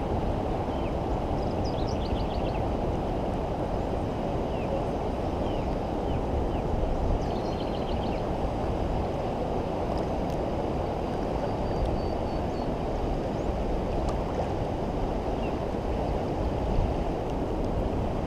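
Steady low rush of wind and fast-flowing river water, with a few faint, short bird chirps scattered through it.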